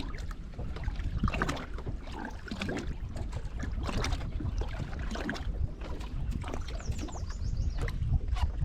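Wind rumbling on the microphone and water against a small fishing boat, with scattered light knocks and clicks.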